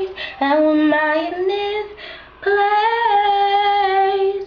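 A girl's solo voice singing gospel-style without accompaniment. She runs quickly through sliding notes, then holds one long note.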